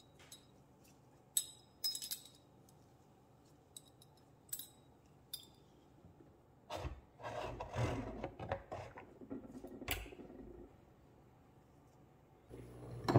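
Small hard objects handled on a workbench: a scatter of light clicks and clinks, then a few seconds of rubbing and knocking. Music starts near the end.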